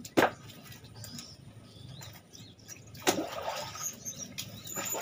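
Knife scraping the scales off a small climbing perch (papuyu), with scattered scrapes and ticks and one sharp knock just after the start. Faint bird chirps behind.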